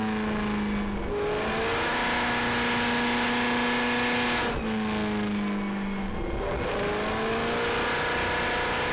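Ford GT40's 289 cubic-inch small-block V8 running loud on a dynamometer, holding steady engine speeds. It steps up about a second in, drops back suddenly around the middle, then climbs again and holds.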